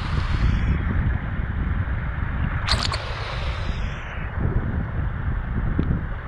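River water rushing around a GoPro camera held under water: a steady, muffled low rumble, with one brief sharp splash-like burst about three seconds in.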